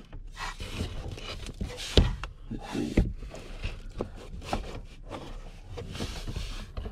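Hands working a speedometer cable through behind the dashboard: irregular knocks, clicks and rustles of cable and plastic trim, with a sharp knock about two seconds in and another about a second later.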